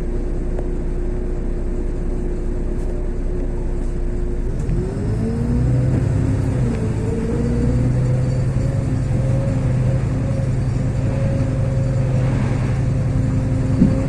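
LiAZ 6213.22 articulated diesel city bus heard from inside while driving: a steady whine, then about four and a half seconds in the engine takes load and a rising whine climbs as the bus accelerates. A brief knock near the end.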